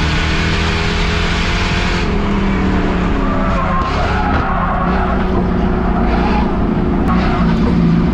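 Race car engine running hard with tires skidding and squealing, the engine note shifting in pitch.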